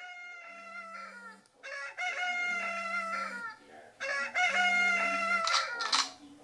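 Smartphone alarm sounding a rooster crow, three crows getting louder each time, over the phone's vibration buzzing against the surface in pulses about a second long every two seconds.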